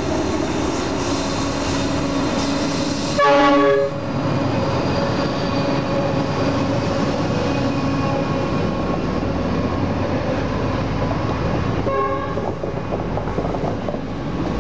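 NR class diesel-electric freight locomotive sounding its horn in one loud blast about three seconds in, and a shorter, fainter toot near the end. Underneath runs the steady rumble of the freight train and its wagons passing close by.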